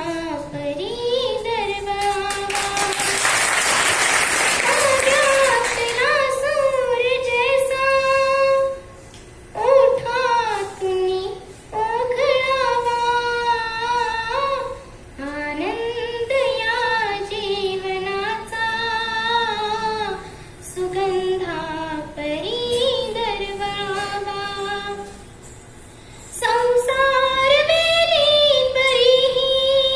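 A girl singing a Marathi song solo, in long held notes with vibrato, with short breaks between phrases. About three seconds in, a hissing noise lies under her voice for a few seconds.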